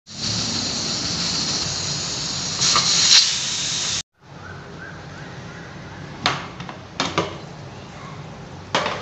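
Aluminium pressure cooker venting steam with a steady hiss, louder for a moment about three seconds in: the pressure is being let out after cooking so the lid can come off. The hiss cuts off abruptly, followed by a few sharp metal clicks and knocks as the lid is handled.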